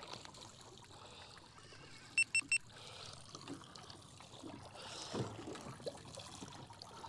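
Water lapping faintly against a small boat's hull, with three quick high-pitched electronic beeps about two seconds in.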